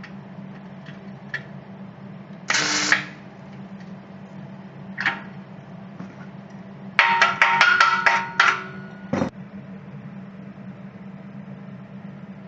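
Drawn-arc stud welding with a Taylor 1200 hand stud gun on mild steel. About two and a half seconds in, a half-second crackling burst marks the arc as a 10 mm shear stud is fired down. Later comes a louder rapid string of sharp metallic clicks with a ringing tone, then a single knock, all over a steady low hum.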